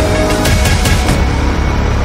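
Loud intro title music: a run of four sharp percussion hits about half a second to a second in, over a steady low bass.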